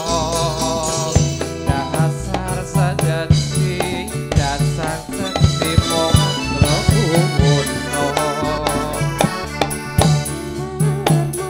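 Live Dolalak dance music: a wavering melody over a steady, regular beat of drums.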